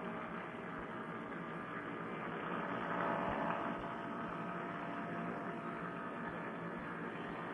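Paramotor engine running steadily in cruise flight, heard as a muffled drone through a headset microphone that cuts off everything above the mid-highs. It swells briefly about three seconds in.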